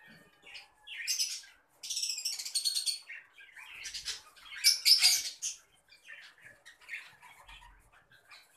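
Fischer's lovebirds chattering with rapid, shrill chirps and squawks, in loud bursts about a second in, around two to three seconds in, and loudest near five seconds in, then softer scattered chirps.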